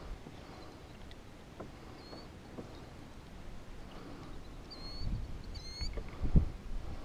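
Quiet handling of a bass on a plastic measuring board in a kayak: faint scattered knocks and rustles, with a couple of stronger low thumps near the end. A bird chirps a few short high notes in the second half.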